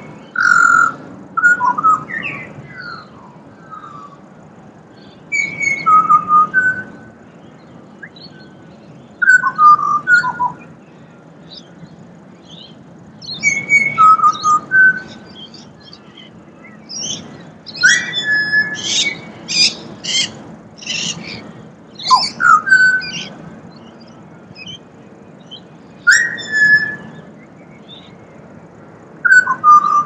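Pied butcherbird singing: short phrases of whistled notes, some sliding up or down in pitch, coming every four seconds or so. About halfway through there is a faster run of higher notes.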